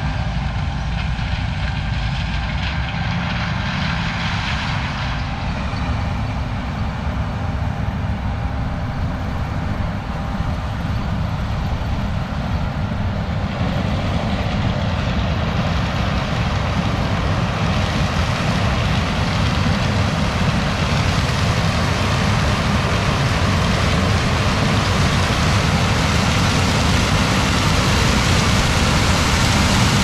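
John Deere S780 combine harvesting corn, its engine and corn head running steadily, growing louder in the second half.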